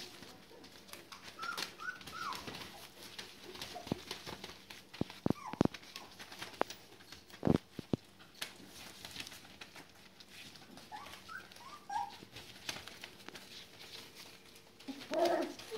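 Border collie puppies, about four weeks old, giving short high squeaks and whimpers while scrambling over newspaper, with rustling and small clicks throughout. A thump about halfway, and a louder yelp near the end.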